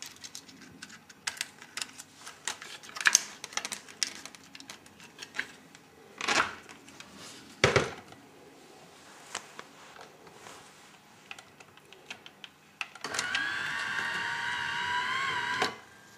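Grundig BK 3000 video recorder's tape mechanism clicking and clacking, with two louder clunks, then a motor whine of several tones for about two and a half seconds that wavers near the end before cutting off.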